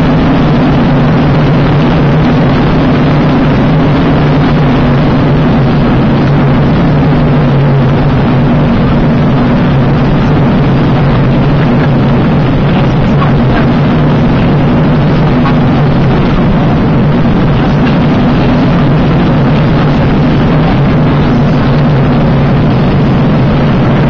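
Small aircraft engine running steadily, a constant low drone with airflow noise, heard from inside the cockpit.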